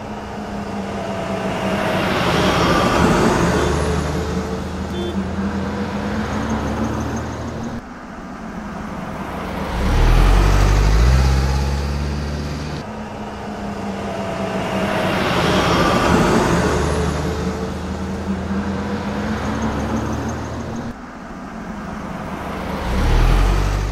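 City street traffic ambience: cars and heavier vehicles passing, with a deep vehicle rumble growing loud about ten seconds in and again near the end. The same stretch repeats about every 13 seconds.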